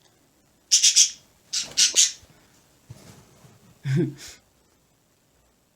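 Pet birds calling: short, high squawks in two clusters, about a second and about two seconds in, then a shorter sound near four seconds.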